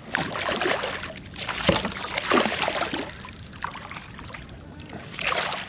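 Irregular splashing and water noise around a kayak, in a run of bursts over the first three seconds and again shortly before the end.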